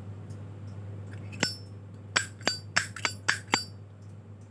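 Zippo lighter being handled: about seven sharp metallic clicks over a couple of seconds, several with a brief high ring.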